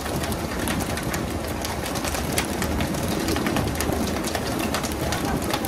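Fishing boat's engine running with a steady low drone under splashing water, with frequent sharp knocks and slaps as tuna are jerked out on poles and land on the deck.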